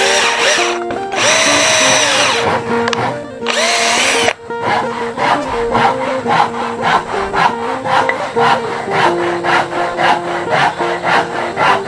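Cordless drill running in two bursts near the start, its motor pitch rising as it bores into wooden framing. After that comes a run of quick, regular strokes, about three a second. Background music plays throughout.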